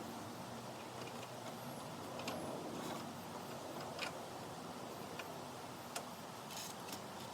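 Scattered light clicks and taps over a steady hiss.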